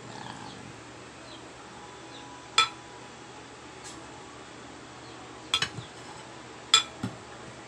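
Metal spoon clinking against ceramic bowls while soup is spooned from a serving bowl into a small bowl: several sharp, separate clinks a second or so apart.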